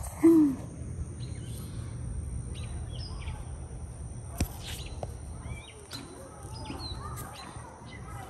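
Small birds chirping in short scattered calls over steady outdoor background noise. There is a brief low sound right at the start and a single sharp click about four and a half seconds in.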